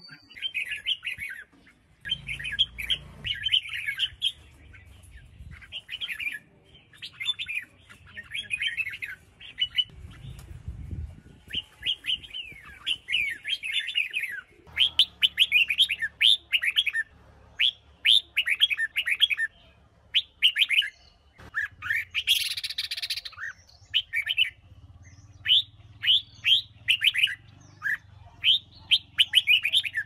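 Red-whiskered bulbul singing: short phrases of quick, falling whistled notes repeated over and over with brief pauses between them, with one harsher, scratchier call about two-thirds of the way through.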